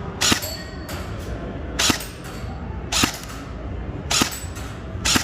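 Airsoft gun firing single shots, five sharp cracks about a second apart, each followed by fainter clicks.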